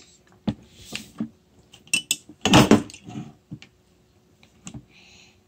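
Tableware clinking and knocking: a metal spoon tapping and scraping in a small glass jar and a stainless-steel sippy cup set down on the table. A scatter of sharp clicks, with the loudest cluster about two and a half seconds in.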